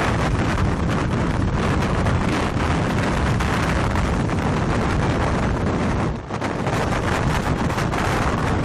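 Strong wind rushing over the microphone in a steady roar of noise, easing briefly about six seconds in.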